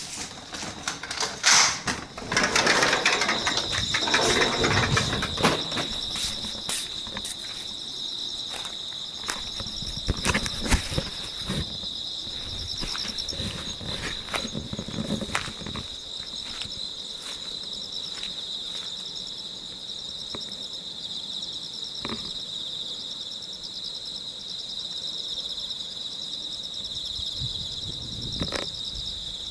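Insects chirring steadily in a high, finely pulsing drone. Over the first few seconds a burst of knocks and scraping from handling work is the loudest thing, with occasional single clicks later.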